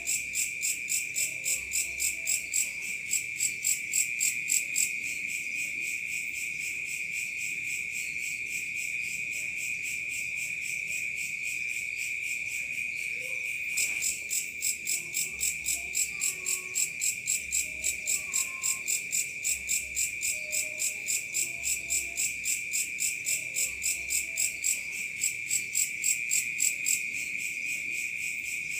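Night insect chorus of crickets: one steady high trill runs on while another insect chirps in rapid, even pulses, about three a second. The pulsing drops out about five seconds in and comes back about halfway through.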